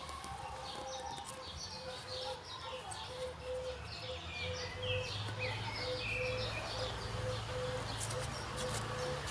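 Small birds chirping over and over in short high calls, with a steady low note pulsing about twice a second and a low hum beneath that swells about halfway through.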